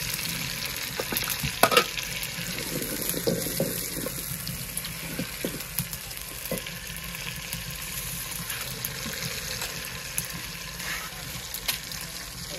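Chicken and potato curry sizzling steadily in a pot over a wood fire, with scattered clicks and knocks of a ladle against the pot; the sharpest knocks come about a second and a half in.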